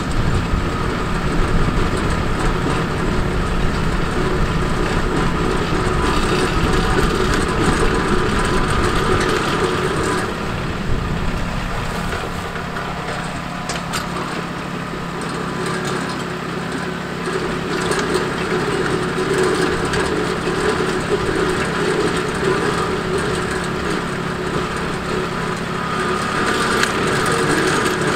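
RK 37 compact tractor's diesel engine running steadily, driving its three-point post hole digger as the auger drills into the ground and is lifted out; the sound eases a little through the middle.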